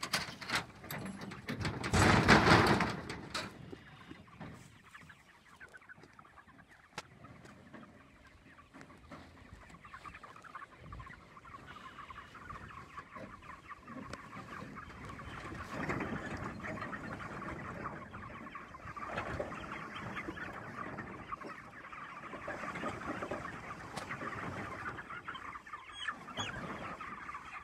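A flock of young broiler chickens cheeping and clucking together, their chatter building from about ten seconds in and carrying on steadily. A loud burst of noise about two seconds in.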